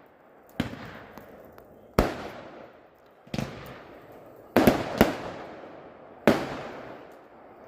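Aerial fireworks bursting: six sharp bangs, roughly one every second or so with two close together near the middle, each trailing off in a long rolling echo.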